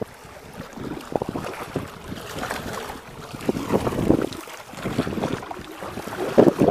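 Gusty wind buffeting the microphone in uneven gusts beside choppy open water, growing stronger near the end.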